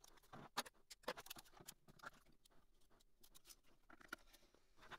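Faint, quick plastic clicks and scratches from a filament spool being handled and filament being pushed into the feeder of a Bambu Lab AMS Lite. They are thickest in the first two seconds and again near the end.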